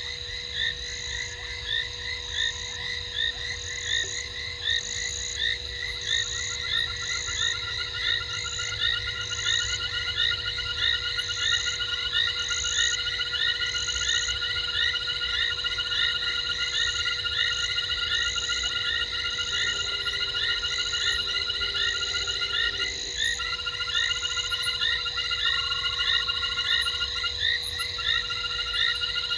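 Night chorus of frogs at a waterhole: many overlapping calls, with a high pip repeated a little more than once a second and a long pulsed trill that starts about six seconds in.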